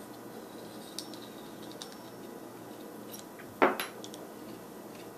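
Small metal clicks and clinks as a bookbinding plough's round blade and the screw and washers through its centre are handled, with one louder clack about three and a half seconds in.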